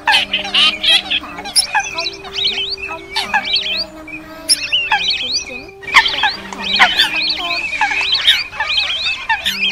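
Spliced bird-trapping lure recording of wetland bird calls, mixing Eurasian coot, wild duck, teal and lesser whistling duck. Many short chirping and whistling calls overlap densely, with low held tones coming and going underneath and a brief break about six seconds in.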